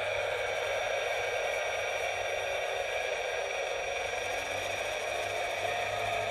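Wedico CAT 966G II radio-controlled scale-model wheel loader running, a steady mechanical whir and hum that holds at a constant level throughout.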